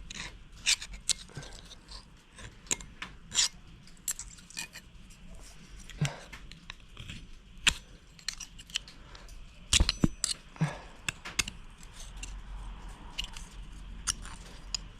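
Knife blade scraping and digging into Bondo body filler on a cast anvil, an irregular run of scratchy scrapes and sharp clicks with a few harder knocks. The blade cutting into it shows the patch is soft filler over a casting flaw, not steel.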